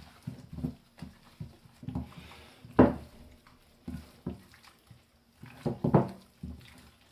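Hands mixing raw chicken drumsticks with oil and spice powders in a bowl: irregular wet squelching and slapping, with louder squishes about three and six seconds in.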